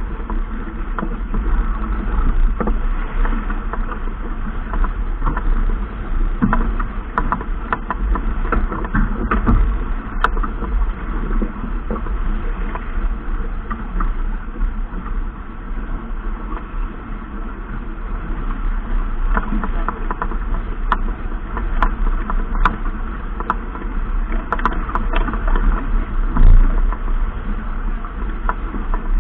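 Steady low rumble aboard a boat under way, with scattered clicks and knocks throughout and one louder knock a little before the end.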